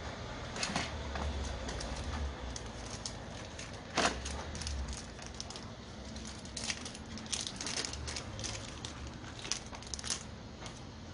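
Scattered small clicks and light taps of hands handling small hand-grinder parts while taking out its carbon brushes, with one sharper click about four seconds in and a low hum underneath.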